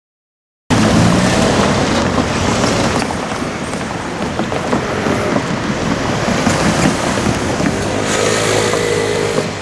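Loud, steady rumbling vehicle noise that cuts in abruptly about a second in, with a faint wavering whine near the end.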